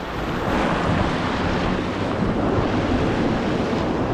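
Steady wind buffeting the microphone with rushing water, the sound of moving fast across open water on a jetski or tube.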